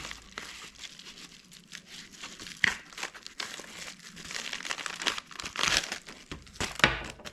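Packaging of a piston ring set crinkling and tearing as it is handled and opened, a continuous crackle with a couple of louder rustles, one a few seconds in and another near the end.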